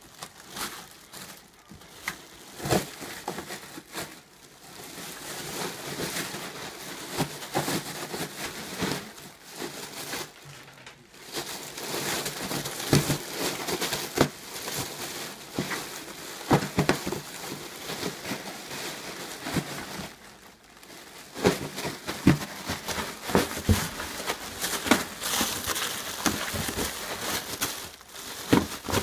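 Plastic air-cushion packaging crinkling and rustling as a Cairn terrier digs and burrows through it in a cardboard box, with many sharp crackles and scrapes. The rustling eases off briefly twice.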